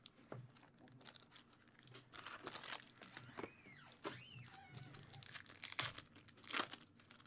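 The foil wrapper of a 2016-17 Upper Deck Black Diamond hockey card pack being torn open and crinkled as the cards are pulled out: faint crackling with many small clicks.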